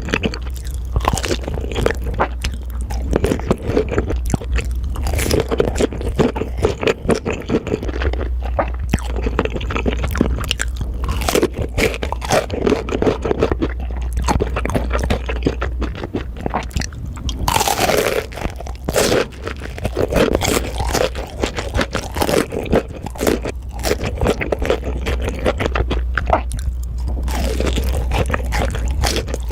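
Close-miked mukbang eating: dense, irregular crunching and chewing of food, played back sped up, over a steady low hum.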